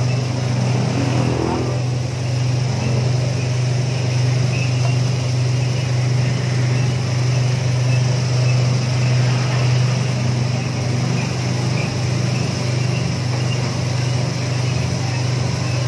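Vibrating flour sieve (vibro sifter) running: its vibration motor and shaking stainless steel sieve deck make a steady low hum with an even buzzing noise over it.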